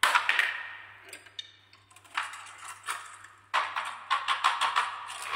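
Glass marbles clattering and clinking against each other in the plastic bed of a toy dump truck, in several bursts of dense clicking, the loudest at the start.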